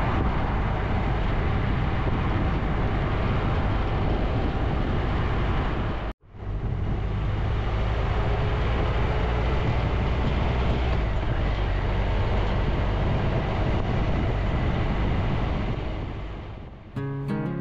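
Motorcycle riding on a town road: steady engine, wind and road noise, cut off briefly about six seconds in. Near the end it fades out and acoustic guitar music begins.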